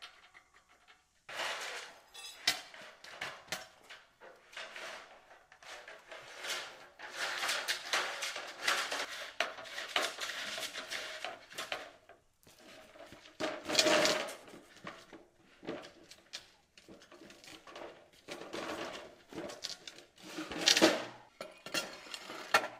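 Aluminium mill-track parts, bolts and roller chain being handled during assembly: irregular metallic clinks, rattles and scrapes, with the loudest clatters a little past the middle and near the end.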